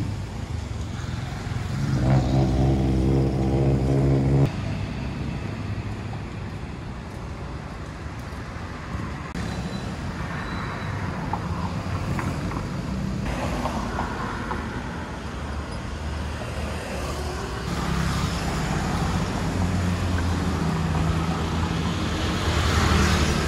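Road traffic: vehicle engines running and passing. A steady engine hum sounds from about two seconds in and cuts off suddenly a couple of seconds later, and another engine grows louder near the end.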